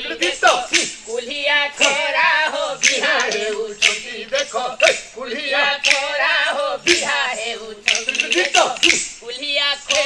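A man chanting in a sung delivery, with repeated sharp wooden clicks of dashkathia, the pairs of wooden clappers rattled in the performer's hands.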